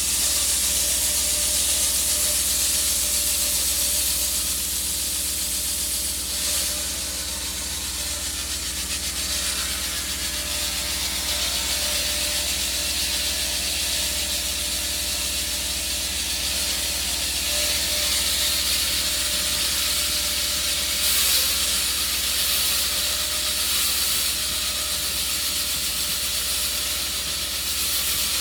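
Concrete saw cutting through thick concrete: a steady hiss of the blade in the cut over a constant low machine hum, swelling slightly now and then.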